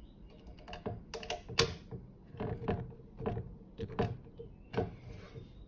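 Small screws being driven by hand into a plastic instrument enclosure with a small screwdriver: a string of irregular clicks and scrapes of the screw and tool against the plastic.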